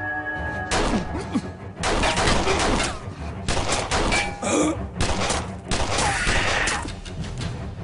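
Gunfire in a dramatic shootout: many sharp shots and impacts in quick succession, starting about a second in.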